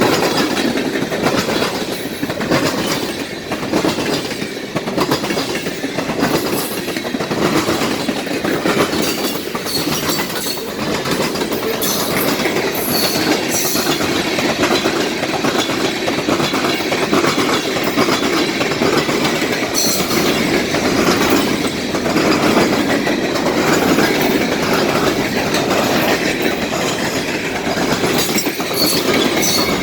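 Freight train cars rolling past, wheels clicking over rail joints in a steady rhythm over a continuous rumble.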